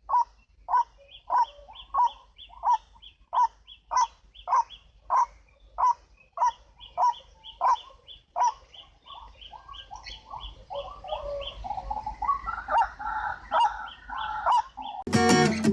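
White-breasted waterhen (ruak-ruak) calling: a steady series of harsh, evenly spaced calls, about one and a half a second. About ten seconds in, more overlapping calls join and build into a busier chorus. Loud music cuts in at the very end.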